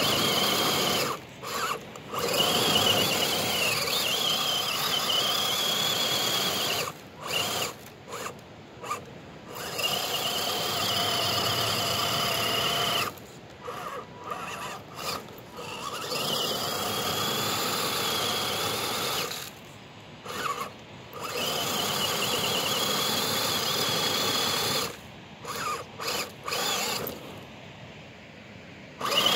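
Electric motor and gear drivetrain of a radio-controlled scale rock crawler whining under throttle, in stretches of a few seconds with short blips and pauses between, as it climbs a steep gravel slope.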